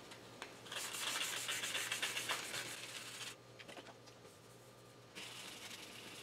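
Sandpaper rubbing on primed sheet metal in quick scratchy strokes for a couple of seconds, then a pause, then rubbing again near the end. A faint steady hum runs underneath.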